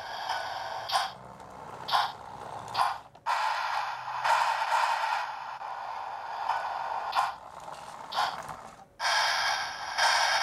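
Lionel LionChief O-gauge Thomas locomotive running on its track, its onboard sound system playing steam-engine running sounds over the noise of wheels and motor, with a louder puff about once a second. The sound cuts out briefly twice, about three seconds in and again near nine seconds.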